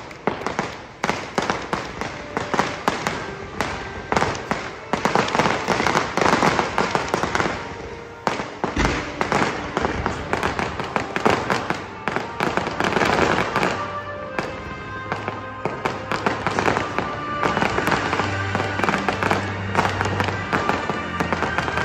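Fireworks display: many aerial shells bursting in quick succession, a dense, overlapping run of bangs and crackles.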